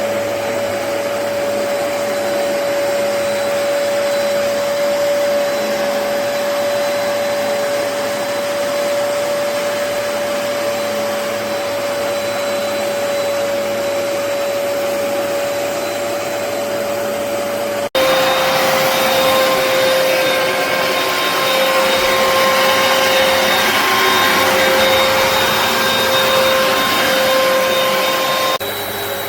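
Hoover PowerDash Pet carpet cleaner running steadily, a motor whine over a dense suction hiss. About two-thirds of the way through, the sound changes abruptly to a slightly lower whine with louder hiss, then switches back shortly before the end.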